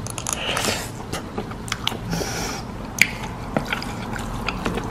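Chopsticks and a plastic spoon working saucy glass noodles in a foil hot pot tray: scattered wet clicks and squelches, a short hiss about two seconds in, and a sharper click about three seconds in.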